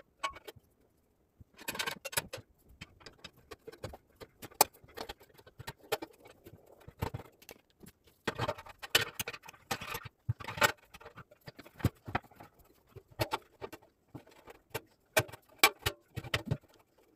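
Irregular metal clicks, taps and clatter of an iron three-tier rack being put together by hand, its trays slotted onto the wire side frames without screws.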